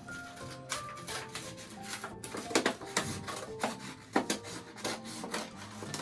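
Scissors cutting through a folded paper plate: an irregular series of crisp snips and paper rustling, over quiet background music.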